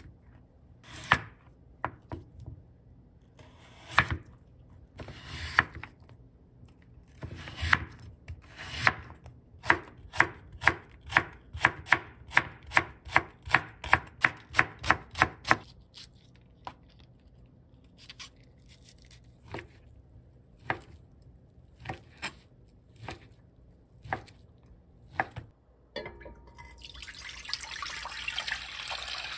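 Kitchen knife chopping on a cutting board, cutting daikon radish and then slicing green onion in a quick even run of chops, about two to three a second, followed by slower single cuts. Near the end, stock pours in a stream from a container into a pot.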